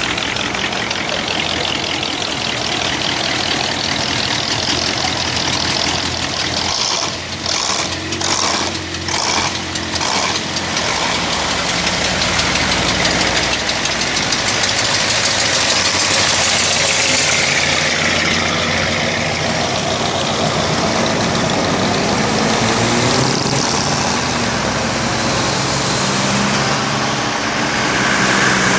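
A slow procession of cars driving past one after another, engines running and tyres rolling on asphalt. Near the end one car's engine note grows louder and rises as it draws close.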